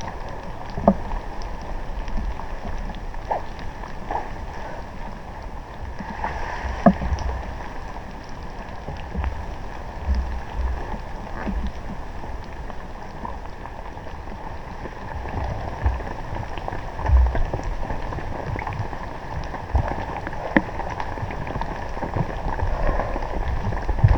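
Wind buffeting the microphone in irregular low rumbling gusts, with scattered light ticks and knocks.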